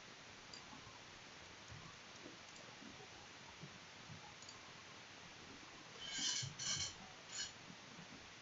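Faint computer mouse and keyboard clicks over a steady hiss, then three short, louder clattering bursts about six to seven and a half seconds in.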